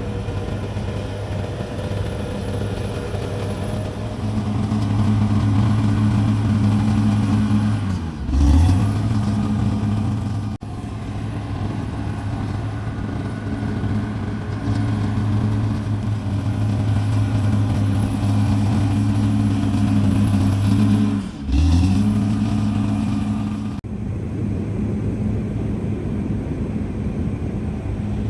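CAT D6R XL bulldozer's diesel engine running under load with a steady low drone; twice, about a third of the way in and again near three quarters, its pitch sags briefly and climbs back.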